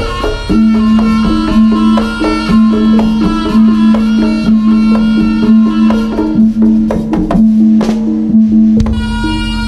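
East Javanese jaranan gamelan music played live: drums and tuned percussion in a steady, driving rhythm with ringing pitched notes.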